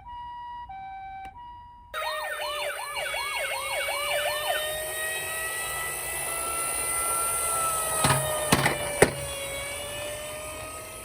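Toy emergency-vehicle minicar sirens: a two-tone hi-lo ambulance siren alternating steadily, then about two seconds in a different, hissier siren cuts in with rapid yelping rises, about four a second, that settle into a slow wail. Three sharp clicks come near the end.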